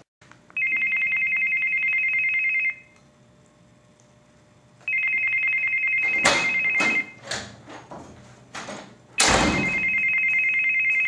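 Electronic ringer of a desk telephone, ringing three times: a rapid high two-tone warble, each ring about two seconds long with two-second gaps. Heavy thumps and knocks join in from about halfway through, loudest at the start of the third ring.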